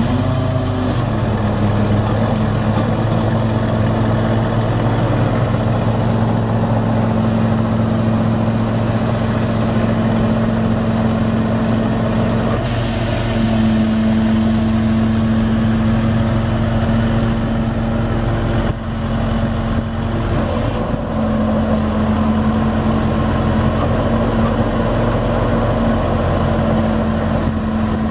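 A Ford 7.3-litre V8 diesel engine in a Ford F550 truck, running steadily with an even low drone.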